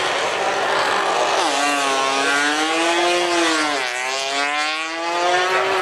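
MotoGP racing motorcycle engine at high revs. Its pitch drops sharply about a second and a half in, swells up and falls steeply near four seconds, then climbs again.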